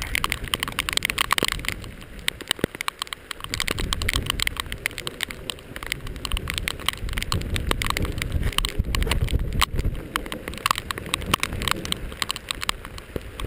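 Heavy rain falling, with drops striking close to the microphone as dense, irregular taps. A low rumble on the microphone joins them about three seconds in.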